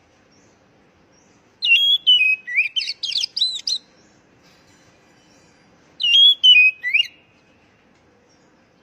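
Oriental magpie-robin (kacer) singing: two phrases of quick, sliding whistles and chirps, a longer one about a second and a half in and a shorter one about six seconds in.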